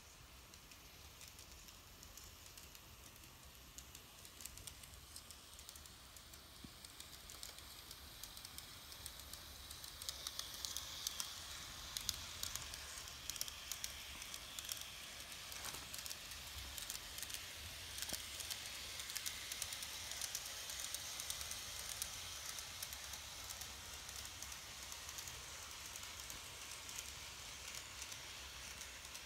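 N-gauge model steam locomotive and coaches running on plastic track: a faint high whirring hiss with rapid, irregular clicking of small wheels over the rails, growing louder about ten seconds in.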